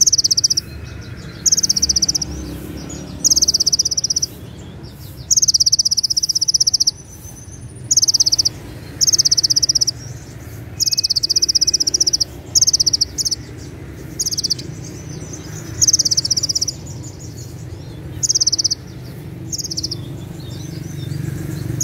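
Caged male Van Hasselt's sunbird (kolibri ninja) singing its 'tembakan cililin': about ten high, shrill, rapid trills, each half a second to a second long, with short pauses between.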